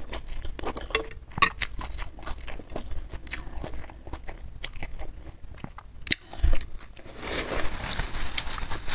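Close-miked eating sounds: slurping rice vermicelli noodles and chewing, with many small wet mouth clicks. Near the end comes a soft rustling as a tissue wipes the mouth.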